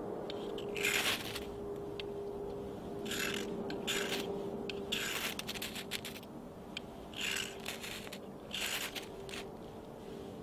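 Short, hard scraping strokes, about six, a second or two apart, from a tool worked against wood shavings, with a faint steady tone underneath.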